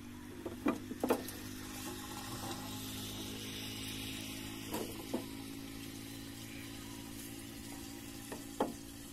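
Water poured from a metal tin into a centrifugal irrigation pump's pipe to prime the pump, with a handful of sharp metallic knocks as the tin meets the pipe.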